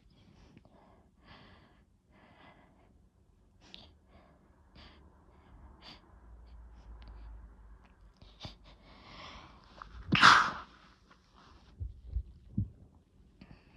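A person's sneeze: soft, uneven breaths build into a short, rising in-breath, then a single loud sneeze about ten seconds in. A few low thumps follow near the end.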